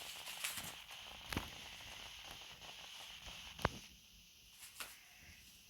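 A few faint, scattered knocks and taps, four or so, the loudest a sharp knock a little past halfway, over a steady hiss that falls away about two-thirds of the way through.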